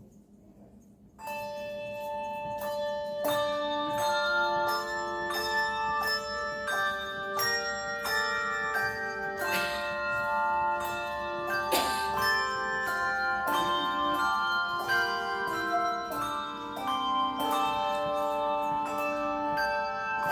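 Handbell choir starting a hymn about a second in: tuned handbells struck in chords, each note ringing on under the next.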